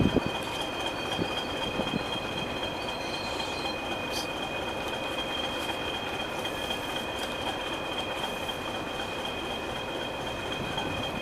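A diesel train moving along the track, with a few knocks in the first two seconds and a steady high-pitched whine over the running noise.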